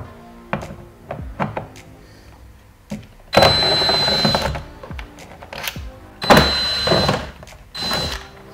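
Cordless drill-driver backing out the screws along the bottom of a car door panel: a few clicks, then the motor runs in three short whirring bursts with a high whine, the first the longest. Background music plays under it.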